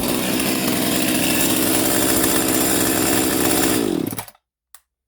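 Echo CS-510 chainsaw's two-stroke engine running steadily, then switched off about four seconds in, its pitch falling as it spins down. A faint click follows.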